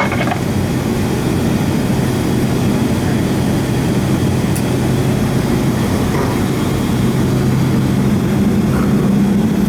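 Cabin noise of a Boeing 757 taxiing: a steady low engine and airflow hum with constant low tones, gradually getting a little louder.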